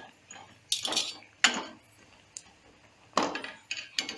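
Perforated steel ladle knocking and scraping against a steel kadai as fried vadais are lifted out of the hot oil: five or so sharp metallic clinks and scrapes, with a longer scrape about a second in.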